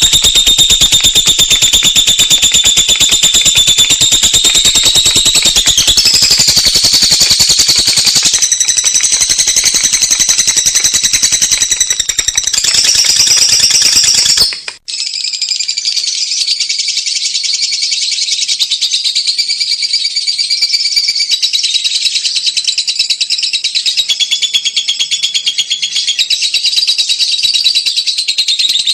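Lovebird ngekek: a long, loud, very fast chattering trill kept up without pause, its pitch shifting now and then. About halfway through it cuts out for an instant and carries on in another passage.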